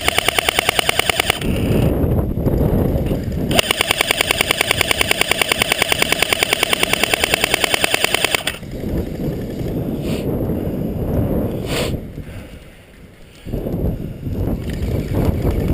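Airsoft rifle firing on full auto in two long bursts, a fast, even rattle of shots. The first burst stops about a second and a half in; the second runs from about three and a half to eight and a half seconds in. Wind on the microphone and handling noise follow, with one sharp crack near the end.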